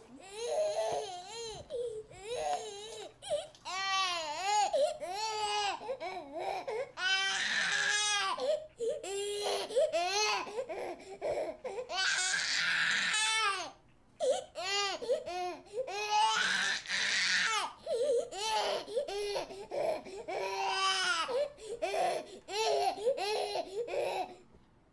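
Infant crying hard: a continuous run of wailing cries, each rising and falling in pitch. Louder, strained screams come about eight, twelve and seventeen seconds in. The crying stops just before the end.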